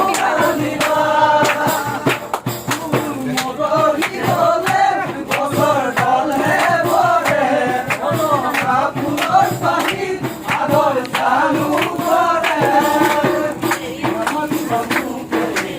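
Music with singing voices over percussion.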